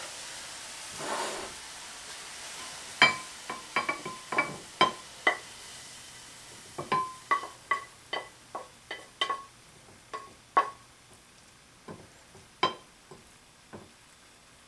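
Wooden spatula scraping food out of a nonstick frying pan into a ceramic bowl plate, the pan and spatula knocking against the bowl in a string of irregular sharp clinks, each with a brief ring.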